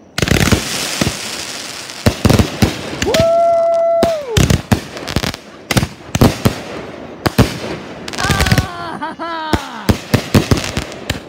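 Consumer firework cake firing a rapid, irregular run of sharp bangs and crackles, loud from the very start. About three seconds in comes a long, steady pitched tone that falls away at its end, and a second wavering pitched tone follows near the middle.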